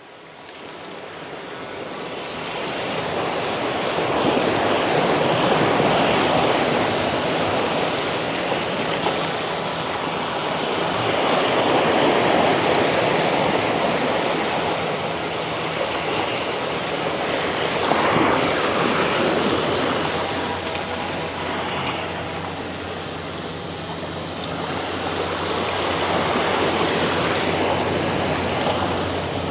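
Ocean surf washing over a rocky shore, a steady rushing that fades in over the first few seconds, then swells and eases every several seconds as the waves come in.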